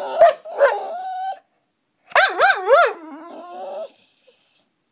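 A dog 'talking' in drawn-out, whining, yodel-like vocalizations: one wavering whine in the first second and a half, then after a short gap a second one whose pitch swoops up and down three times before trailing off lower.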